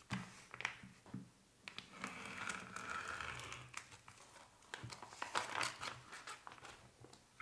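Thin vacuum-seal plastic bag crinkling and crackling as it is cut open with a knife and slices of bacon are peeled out of it, with a hazy scraping stretch a couple of seconds in.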